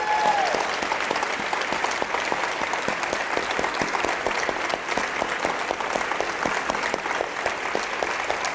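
Audience applauding with dense, steady clapping. The tail of a cheer fades out at the very start.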